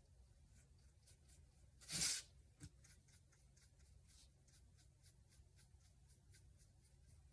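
Faint scratchy strokes of a paintbrush on a canvas panel, with one louder sliding scrape about two seconds in as the canvas is turned on the cardboard work surface, and a light tap just after.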